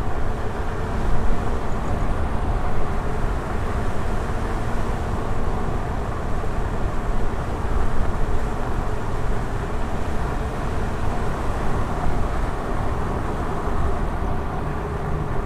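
Riding an electric unicycle: a steady rushing ride noise with a heavy low rumble and a faint steady hum, with no clear starts or stops.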